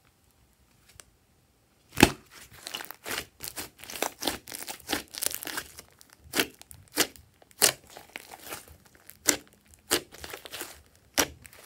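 Hands squeezing, pressing and stretching a large batch of glossy slime: a run of sticky, crackling pops and squelches that starts about two seconds in with one sharp pop and goes on irregularly, several a second.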